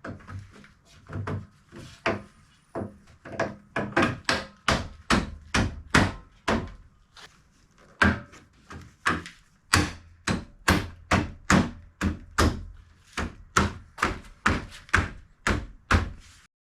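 A long run of sharp knocks, about two a second and uneven in strength, like repeated blows striking a solid object, with a few brief pauses.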